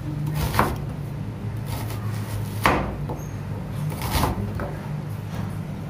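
Chef's knife slicing through a red onion and knocking on a plastic cutting board: about five or six separate cuts, the loudest a little under halfway, over a steady low hum.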